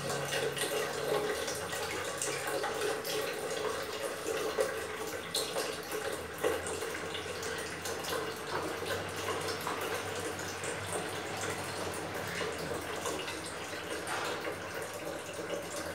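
A spatula stirring a thick, wet prune-and-banana paste with grated coconut in a glass bowl: a steady wet scraping with small irregular clicks of the spatula against the glass, over a low steady hum.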